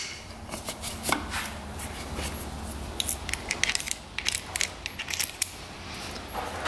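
Light metallic clicks and clinks from the brass-and-steel quick-connect fittings of a compression tester hose as they are handled and coupled, with a quick run of clicks a few seconds in.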